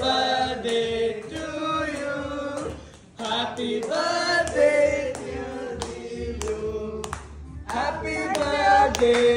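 Several voices singing together, with two short breaks in the singing.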